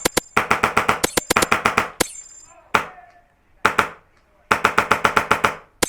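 Airsoft gun firing on full auto in several bursts, about a dozen sharp shots a second. There are pauses between the bursts, and one short burst comes near the end.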